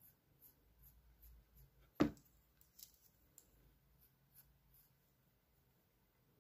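Faint scratchy strokes of an eyebrow brush being worked through the brows, with one sharp click about two seconds in.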